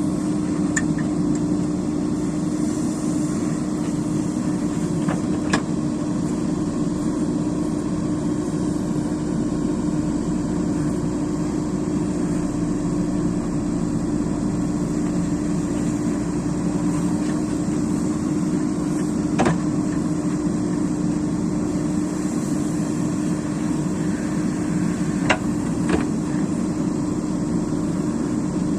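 Diesel engine of a construction machine, such as a JCB excavator, running steadily at an even pitch. A few sharp metallic knocks are spread through it, two of them close together near the end.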